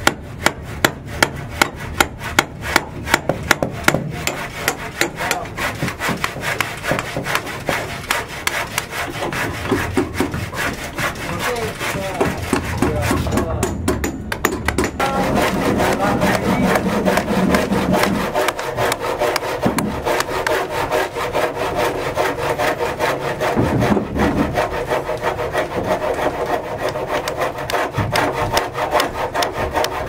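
Machete blade working a wooden stake in rhythmic strokes, about two or three a second; the sound turns steadier and denser about halfway through.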